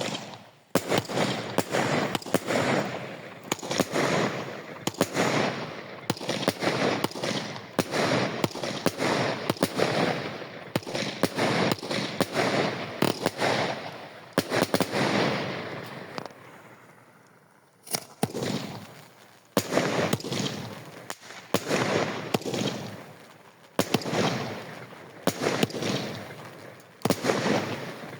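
Fireworks going off in a rapid series of bangs, each trailing off in a fading crackle, about one a second. The firing pauses briefly about two-thirds of the way through, then resumes.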